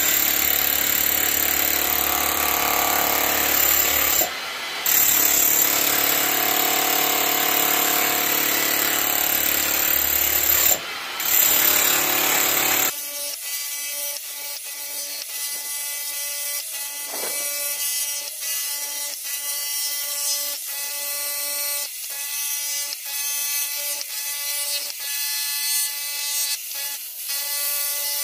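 Milwaukee K545S SDS-max breaker driving a chisel bit into a packed earth and stone floor, with two short pauses. About halfway through the sound abruptly turns thinner and quieter, becoming a steady hum with a regular ticking beat.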